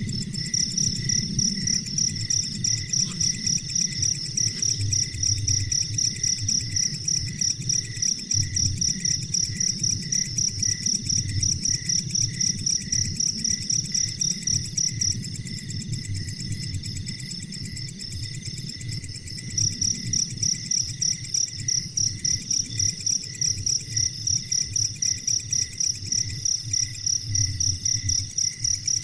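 Insects, likely crickets, chirping in a fast steady pulse at a high pitch, with a second, lower pulsing chirp beneath. The high chirping pauses for a few seconds past the middle, then starts again.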